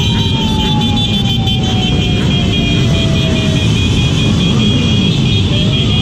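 Steady wind and engine noise from a Yamaha XMax 400 scooter under way, heard from a camera mounted on the moving bike. Over it a siren wails, one long tone sliding down in pitch through the first half, then rising again near the end.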